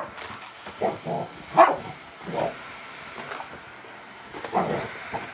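Large dog barking at an upright vacuum cleaner in short separate barks, about five of them, the loudest about a second and a half in.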